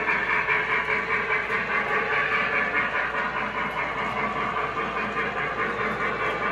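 O gauge model freight train rolling across a trestle: the steady clatter and rumble of metal wheels on the track as a string of boxcars and reefers passes behind a steam locomotive.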